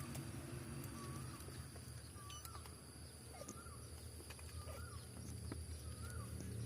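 Kitten mewing, a short high call repeated about six times, roughly once every second, over a steady low hum.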